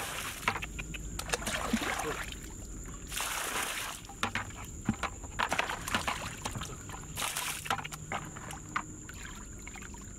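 Muddy water sloshing and splashing as a plastic bucket is scooped through a shallow puddle and tipped out, in repeated bursts of pouring water with small splashes between them.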